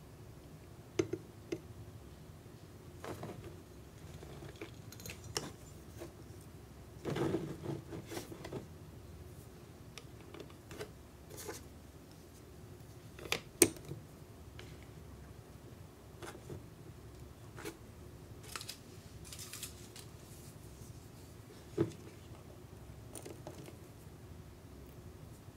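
Small plastic parts of a miniature toy kitchen being handled: scattered light clicks and taps of plastic on plastic, with a few short scraping rustles. The sharpest click comes about halfway through.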